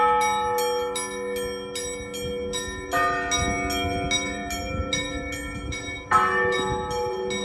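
Orthodox church bells ringing. Small bells are struck in a quick, even rhythm of about three strokes a second, and heavier bells come in about every three seconds, their deeper tones ringing on between strokes.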